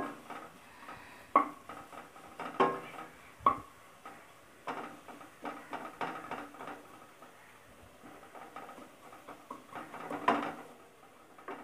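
A wooden spatula stirring and scraping sautéing onions and green chillies around a steel kadai. It gives irregular knocks against the metal, several of which leave the pan ringing briefly.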